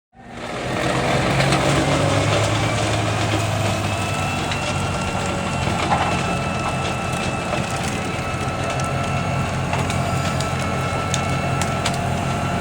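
Large wood chipper running under load, chewing branches: a steady engine drone and a high whine under continuous crackling and splintering of wood being crushed.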